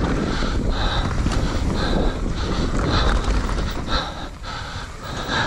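Wind buffeting the camera microphone, with a soft rhythmic sound about twice a second over it; it eases off about four seconds in.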